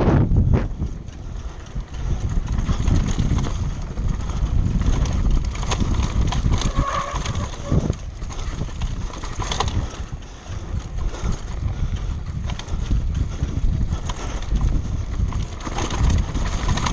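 Wind buffeting the microphone as a low rumble, with irregular rattling and knocking throughout.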